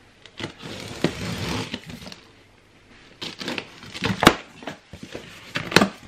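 A scissors blade slitting packing tape along a cardboard box's seam, a scraping hiss, followed after a short pause by sharp clicks and rustling as the tape is cut and the cardboard flaps are pulled open.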